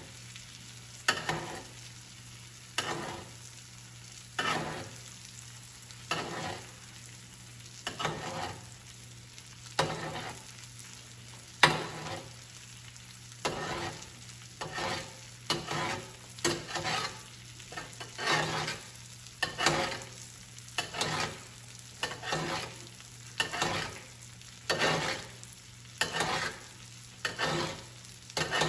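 Hot butter and oil being spooned over filet mignon steaks in a cast-iron skillet. Each spoonful sets off a short burst of sizzling, about one every two seconds at first and about one a second in the second half.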